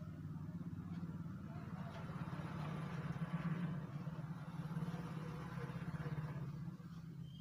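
An engine running with a low, rattly hum that grows louder through the middle and drops away near the end.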